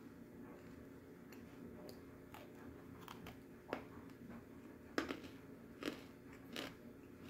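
A person biting and chewing pieces of edible clay, with several sharp crunches in the second half, the loudest about five seconds in.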